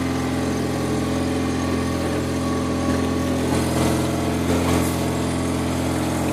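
A 22-foot sailing yacht's auxiliary engine running steadily under way at a constant speed, a continuous even drone.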